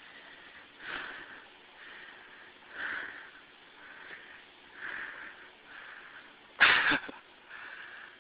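Breathing close to the microphone, with soft hissy puffs about once a second, alternating stronger and weaker. About six and a half seconds in, a short loud burst of noise hits the microphone.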